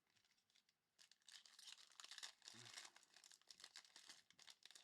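Foil trading-card pack wrapper being torn open and crinkled, starting about a second in.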